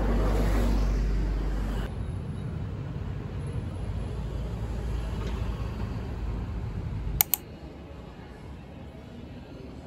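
City traffic noise: a bus running close by gives a loud low rumble for the first two seconds, then a steadier street traffic hum. About seven seconds in come two sharp clicks, and the sound drops to a quieter indoor background.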